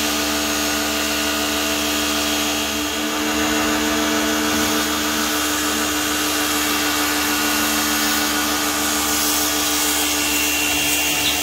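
Small electric pressure washer running steadily: a constant motor hum under the hiss of the water jet spraying onto a cement pond wall.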